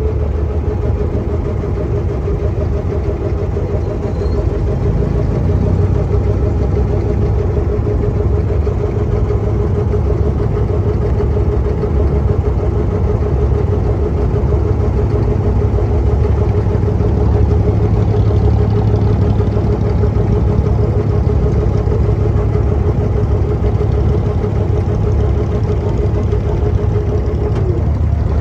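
Abra water taxi's diesel engine running at a steady speed, a constant drone with a deep rumble beneath it. Near the end its note drops as the engine is throttled back while the boat comes up to the station pontoon.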